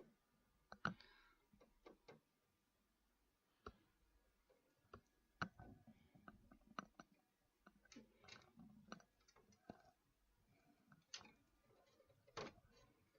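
Quiet handling sounds: scattered small clicks and short rustles at irregular intervals as wire is twisted and worked against the metal of a computer case, with a few sharper clicks about a second in, midway and near the end.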